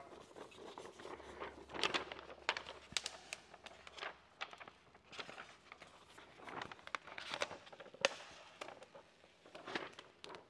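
Faint crinkling and rustling of a sheet of paint protection film and its backing liner being handled and peeled apart, in irregular small clicks and crackles.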